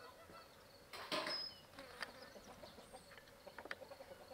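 Faint, steady insect buzzing, with a louder rush about a second in and a few sharp ticks.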